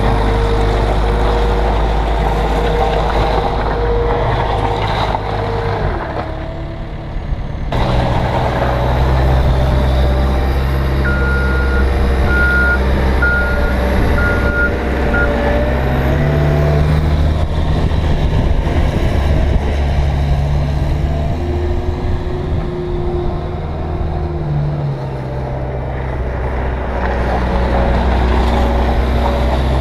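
Cat 236B3 skid steer's diesel engine running and working, its pitch rising and falling as the machine is driven, with a short drop in engine sound about six seconds in. Its backup alarm beeps about five times in a row around the middle, and starts beeping again at the very end.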